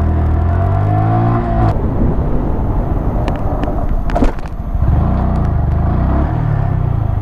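Honda Grom's 125 cc single-cylinder engine accelerating on the road, its pitch rising for about two seconds, dropping at a shift, then climbing again in the second half, over steady road and wind noise. A sharp click about four seconds in.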